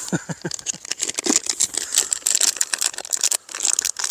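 Plastic packaging crinkling and rustling as it is handled: a rapid run of small crackles, with a few short squeaks in the first half second.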